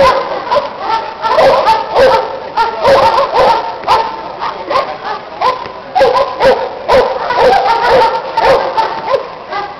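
Police dog barking over and over, loud sharp barks coming several times a second without a break.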